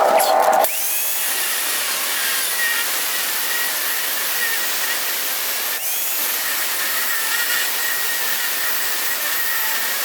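Angle grinder with a cutoff wheel cutting steel hinge stock: a steady high-pitched hiss and whine. A louder, lower sound cuts off under a second in.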